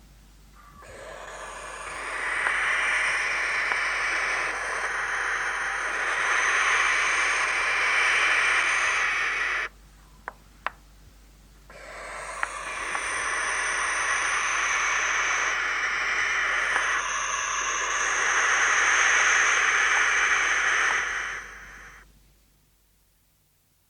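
Barn owl giving two long, harsh rasping calls, each lasting about eight or nine seconds with a short gap between them. A few faint clicks fall in the gap.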